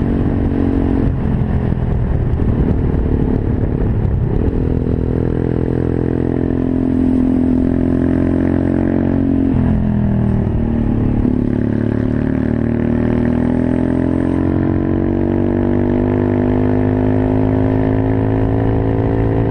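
Monkey bike engine running as the bike is ridden. Its pitch drops a couple of times early on and again about ten seconds in, then climbs steadily as it accelerates.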